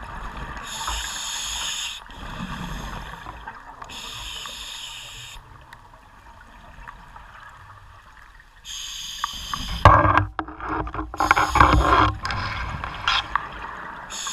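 Scuba diver breathing through a regulator underwater. Several hissing inhalations, each about a second long, repeat every few seconds. A loud burst of exhaled bubbles starts about ten seconds in and lasts a few seconds.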